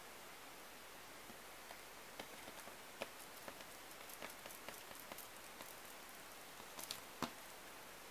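Faint, sticky clicks and squishes of fingers pressing and peeling a giant gummy candy snake, scattered irregularly over a low hiss, with the sharpest ones about three and seven seconds in.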